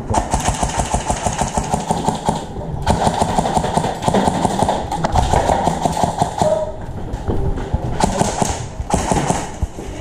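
Airsoft electric guns firing full-auto in long, rapid bursts, with a short pause about seven seconds in.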